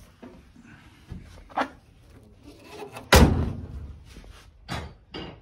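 A car door of a 1958 Chevrolet Impala hardtop slammed shut about three seconds in, with a few lighter knocks before and after it.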